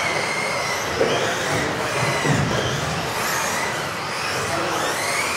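Several RC off-road buggies racing, their electric motors whining and rising and falling in pitch as they accelerate and brake, over the hiss of tyres on the track. A sharp knock comes about a second in.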